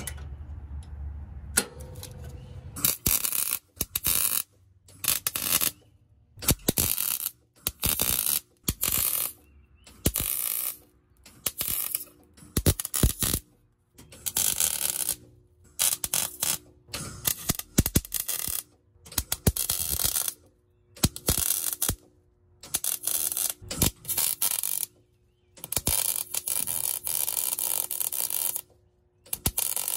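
Wire-feed welder laying a string of short stitch welds: bursts of arc crackle, most under a second long, about one every second and a half, with a longer bead of about three seconds near the end.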